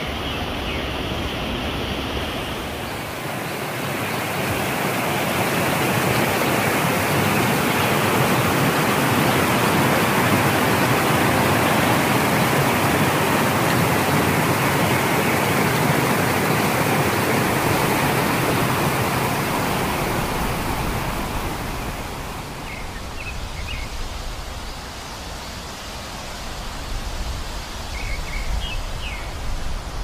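Mountain stream rushing over rocks in small cascades: a steady rush of water that swells louder a few seconds in and eases off after about twenty seconds.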